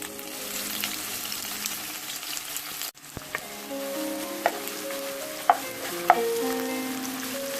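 Chopped onions sizzling as they fry in hot oil with mustard seeds, stirred in the pan. A utensil knocks sharply against the pan three times in the second half, and the sound briefly cuts out about three seconds in.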